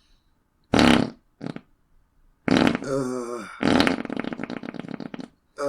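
A man farting loudly several times: a short blast about a second in, a brief second one, then a long wavering one, and finally a rapid sputtering run whose pulses slow toward the end.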